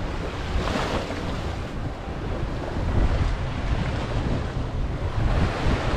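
Small sea waves washing against a rocky shore, mixed with wind buffeting the microphone as a low rumble.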